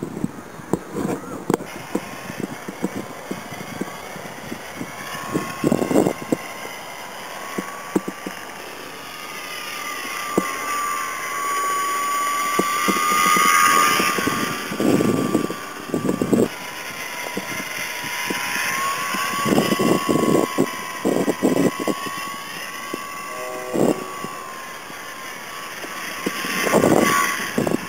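A small scratch-built radio-control plane's motor and propeller whining in flight, the pitch wavering up and down as the plane moves. Gusts of wind buffet the microphone.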